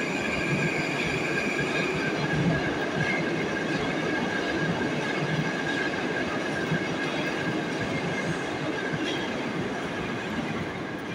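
Metro train running out of the terminal platform toward the dead-end siding: steady rail running noise with high steady squealing tones, the higher tone dropping out about two and a half seconds in, the whole slowly fading.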